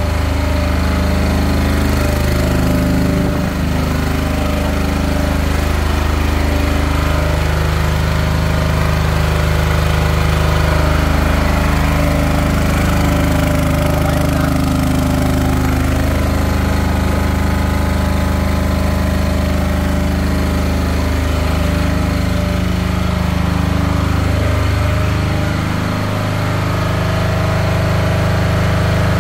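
Heavy-duty enclosed generator set of a mobile lighting tower, its engine running steadily under a four-lamp load.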